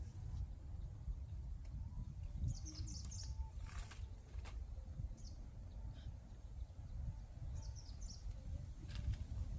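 Small birds chirping in short, high calls, in little clusters a few times, over a low steady rumble. A few sharp clicks or knocks stand out, one about four seconds in and one near the end.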